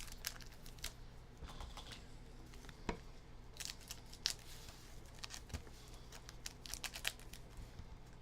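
Trading card packs being opened and handled: irregular light clicks and snaps of cards and pack wrappers being pulled out and stacked, with brief crinkles.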